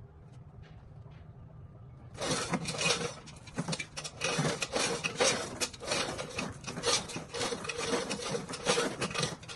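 A faint low hum, then from about two seconds in a loud, rough, irregular scraping made of many short strokes.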